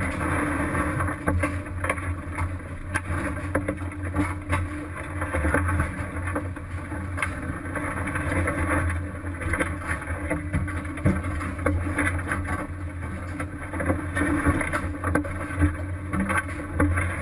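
Crab fishing boat's engine running with a steady low hum under wash and wind noise, with scattered knocks and clanks throughout.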